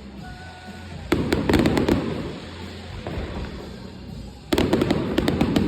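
Fireworks going off in two volleys of rapid sharp bangs and crackles, one starting about a second in and another about four and a half seconds in.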